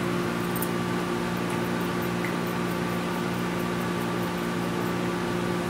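Steady machine hum from a running room appliance, several unchanging tones over a low hiss, with a few faint small clicks of hardware being handled.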